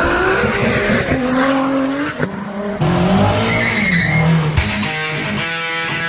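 A car engine revving, rising and falling in pitch, with tire squeal. About four and a half seconds in it cuts to rock music with electric guitar.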